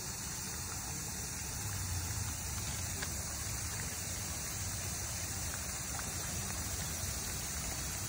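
Steady hiss of a pond fountain's spray falling back onto the water, over a low background rumble.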